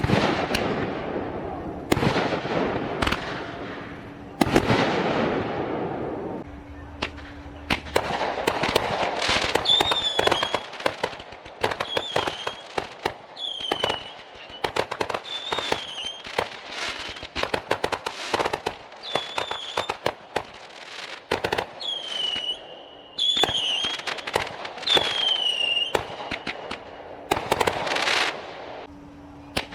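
Consumer fireworks going off in quick succession: a run of sharp bangs and crackling reports, with short high whistles that fall in pitch among them in the middle stretch.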